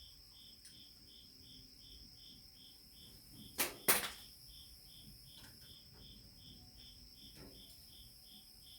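A cricket chirping steadily, about three chirps a second, with two sharp clicks in quick succession about three and a half seconds in.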